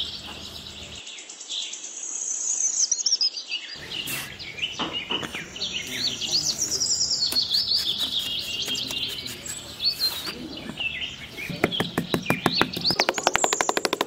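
Small birds chirping and singing continuously, with a fast, even run of clicks over the last couple of seconds.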